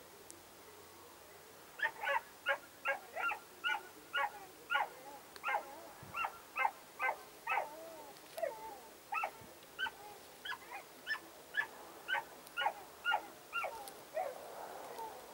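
A dog yipping in a rapid series of short, high-pitched yelps, about two a second. They start about two seconds in and stop shortly before the end.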